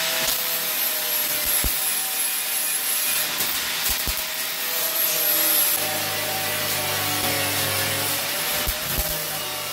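Handheld power grinder running against steel, grinding down rough welds on a car's floor pan: a steady motor whine over a grinding hiss, its pitch wavering slightly as the tool is pressed on. A lower hum joins about six seconds in.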